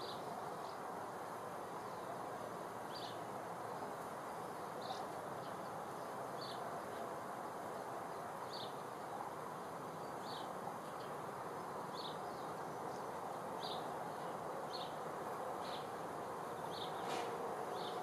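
Outdoor ambience: a steady low rush with short high chirps repeating about once a second.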